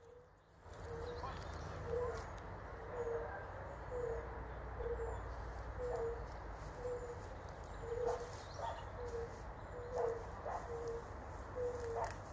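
A chorus of soft, short hooting calls from a reed-fringed pond, each a single low note, repeating about one and a half times a second with several callers overlapping. The uploader takes them for smooth newts singing.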